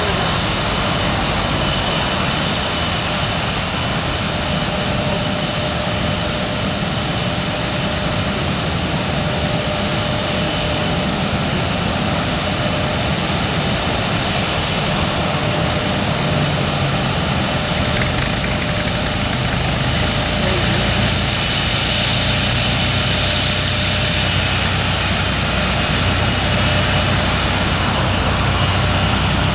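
Tornado GR4 jet engines running at idle: a steady loud rush with a high whine over it, growing a little louder about two-thirds of the way through.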